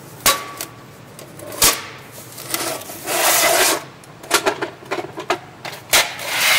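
Handling noises from a plastic drill bit case being fetched and opened: a few sharp clicks and knocks, with a rubbing scrape about three seconds in.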